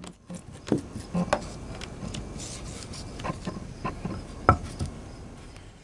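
Small wooden toy figure and a cardboard pizza box being moved by hand along a wooden plank: scattered light knocks and scraping, with one sharper knock about four and a half seconds in.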